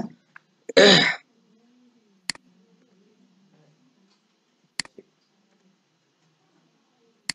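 Computer mouse clicks: three sharp single clicks, about two and a half seconds apart, as text boxes on a slide are selected one after another.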